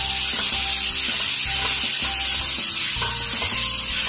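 Onion, tomato, green chilli and olive mixture sizzling steadily in a hot oiled pan as it is stirred, the olive brine just added.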